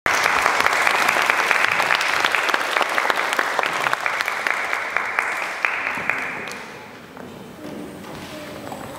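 Audience applauding, the clapping dying away about six to seven seconds in.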